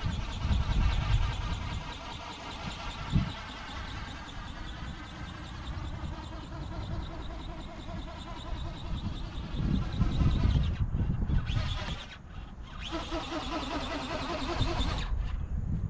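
Whine of the old 'Condor' radio-controlled ornithopter's electric motor and gearbox as it flaps overhead, its pitch drifting slowly, dropping out a couple of times near the end. Wind rumbles on the microphone.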